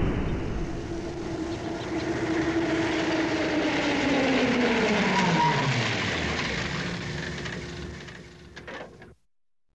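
Edited-in pass-by sound effect, a rushing sound whose tones glide down in pitch over several seconds like something going past. It fades and then cuts off abruptly near the end.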